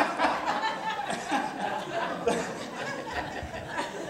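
People laughing: scattered chuckles and laughs from a small congregation and the preacher after a joke.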